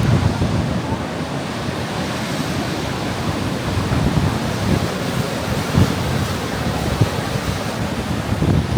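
Strong wind blowing over the microphone with surf from the sea beneath it: a steady rushing noise, buffeting in low gusts near the start, about six seconds in, and again as it strengthens at the end.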